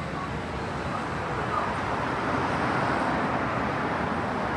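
City street traffic noise, a vehicle passing that swells louder in the middle and eases off near the end.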